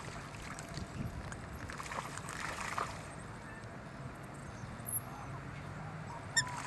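Water splashing in a few irregular rushes over a steady outdoor hiss, with a sharp click shortly before the end.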